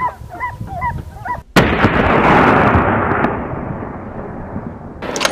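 Hunting dogs baying, then a single gunshot at a wild boar about a second and a half in, followed by a long rolling echo that fades over the next few seconds; a sharp crack comes near the end.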